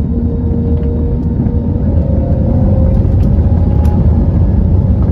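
Cabin sound of an Airbus A320neo rolling down the runway at the start of its takeoff: a steady deep rumble of the engines and wheels, with a faint tone that rises slightly in pitch about two seconds in, growing a little louder.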